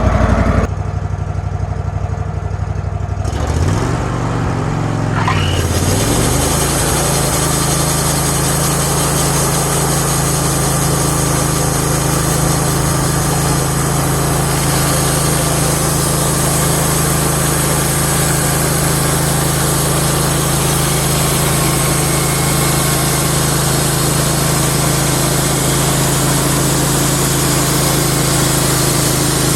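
Wood-Mizer LT15 Wide sawmill's small gas engine running at low speed, then throttled up with a swooping rise in pitch a few seconds in. It then runs steadily at high speed, driving the band blade.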